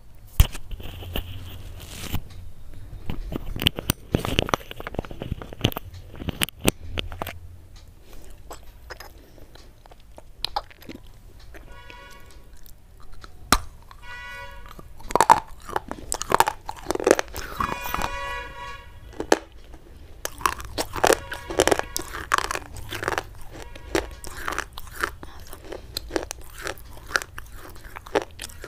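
Brittle white chalk-like sticks and blocks being bitten and crunched close to the microphone: repeated sharp crunching snaps, in clusters with short gaps between bites.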